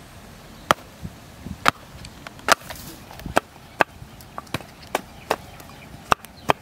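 A machete chopping into sprouted palmyra palm seeds held on a wooden block: about ten sharp, separate chops, roughly one every 0.7 seconds.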